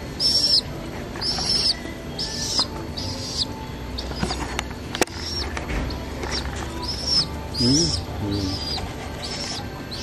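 Young domestic pigeon flapping its wings as it perches on a hand and takes off. Through it runs a series of short, high-pitched bird chirps, about one a second.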